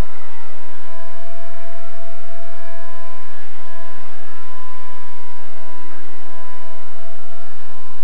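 Blade 130 X electric micro RC helicopter in flight, its motors and rotors giving a steady whine in two tones that dips slightly in pitch now and then as the throttle changes.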